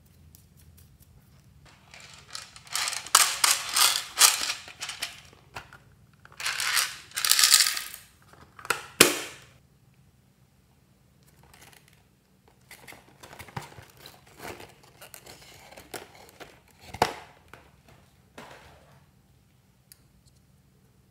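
Small plastic beads rattling and dropping onto a glass dish of slime base, with plastic packaging rustling, in several loud bursts during the first half. After that come quieter rustles and a few sharp clicks of hard plastic being handled.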